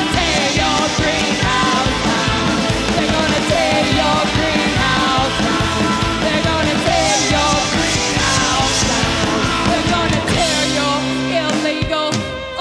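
A rock band playing loud, with drums driving under a singer's wavering vocal line. About ten seconds in the drumming stops and held notes ring on.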